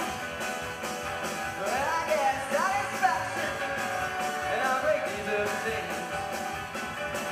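Live band playing an upbeat rock-style number on accordion, acoustic guitar, upright double bass, keyboard and drum kit, with a steady drum beat and sliding melody lines over it.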